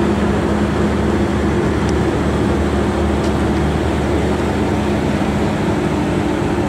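McLaren P1's twin-turbo V8 idling steadily, an even low rumble that neither rises nor falls.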